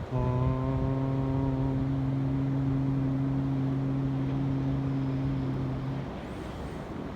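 A low voice chanting one chakra mantra syllable as a single long held note: an open vowel for about two seconds that closes into a steady hum, stopping about six seconds in. Wind and surf are behind it.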